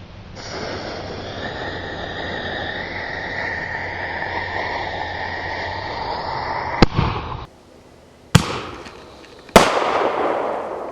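Consumer firework mortar shells from a Mighty Mites kit: a steady hiss for about seven seconds with a sharp bang near its end, then two more sharp bangs about a second apart, each with a ringing tail.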